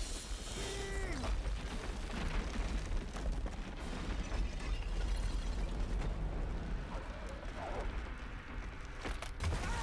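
Film sound effects of rock collapsing into a chasm: deep rumbling and crashing debris. A short falling pitched tone comes about a second in.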